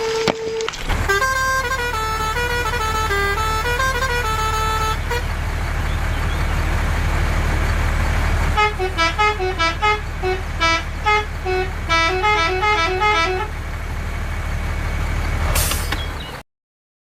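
Battery-powered toy vehicle's electronic sound chip playing two short beeping jingles, the second in quick separate notes, over the steady hum of its small motor; the sound cuts off abruptly near the end.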